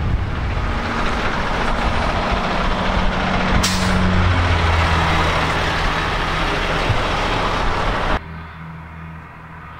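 Heavy diesel dump truck engine running steadily, with a short hiss of air, like an air brake release, a little over a third of the way in. The loud running sound cuts off abruptly near the end, leaving a fainter background.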